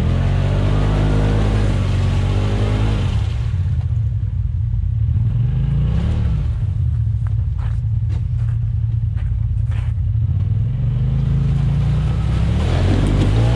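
Side-by-side UTV engine revving under load as it climbs out of a mud hole: the pitch rises over the first few seconds, drops back to a lower steady run, and climbs again near the end. A few short clicks come partway through.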